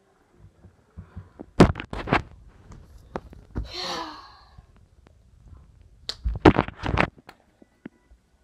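Two quick clusters of loud knocks and thumps, about a second and a half in and again about six seconds in, from a boy's movement and handling of a handheld camera. Between them, about four seconds in, he gives a short voiced cry of about a second.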